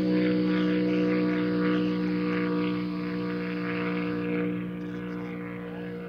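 Vintage Ford roadster land-speed racer's engine droning steadily at full speed down the salt flats, far off and slowly fading as it runs away.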